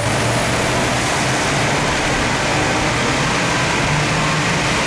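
Mitsubishi Lancer 2.0 GT's four-cylinder engine running hard on a chassis dynamometer, a loud steady noise of engine and rollers.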